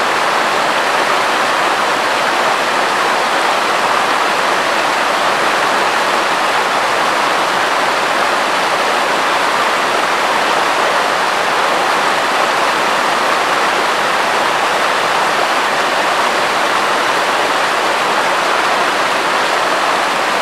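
Mountain river rushing and splashing in small cascades over and between boulders: a steady, even whitewater sound.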